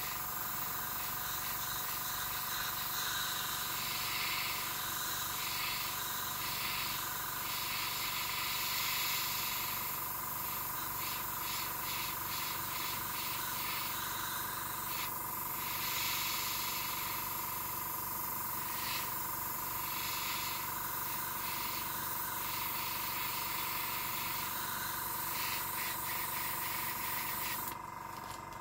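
Fine Art FA-180X airbrush with a 0.3 mm nozzle at 1 bar spraying thinned acrylic paint: a steady airy hiss that swells and eases in short bursts as the trigger is worked. It stops shortly before the end.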